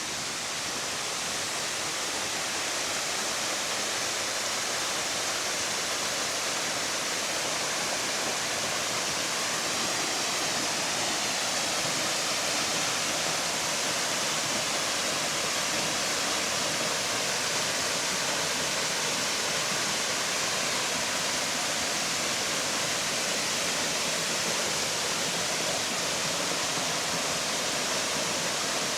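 Waterfall cascading steadily, a dense, even rush of falling water that grows a little louder over the first few seconds.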